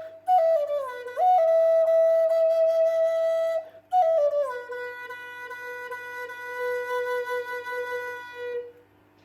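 Solo flute playing long held notes with short downward slides between them. It settles on a long low final note that fades out just before the end, closing the phrase.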